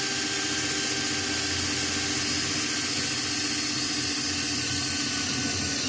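Electric drill motor running steadily at constant speed, drilling a hole through bus bar stock.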